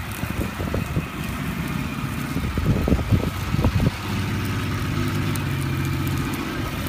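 GMC Jimmy SUV's engine running at low speed as the truck crawls off-road. About four seconds in, the engine note settles into a steady, even hum. Before that, uneven gusts of wind buffet the microphone.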